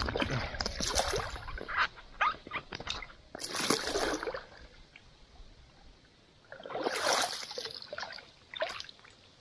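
River water sloshing and splashing right at a microphone held at the waterline, in three surges a few seconds apart with quieter lapping between.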